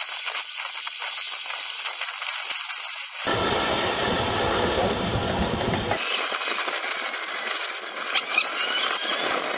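Rattling clatter of a ride-on 7.5-inch gauge miniature train running over its track. About a third of the way in it cuts abruptly to a few seconds of deeper rushing noise, then cuts back to the lighter rattle.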